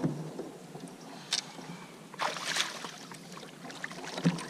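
Paddle moving water in one splashing stroke about two seconds in, among knocks and a sharp click of gear against a plastic fishing kayak, with a knock at the start and another near the end.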